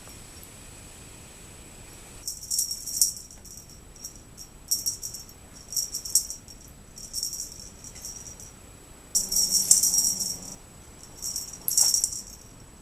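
A cat making short, irregular bursts of high rattling, some brief and some longer like dots and dashes; the longest, of about a second and a half, comes a little past nine seconds in.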